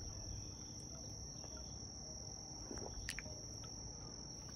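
Faint outdoor ambience: insects calling in a steady high-pitched drone, with a few short bird chirps, the clearest about three seconds in.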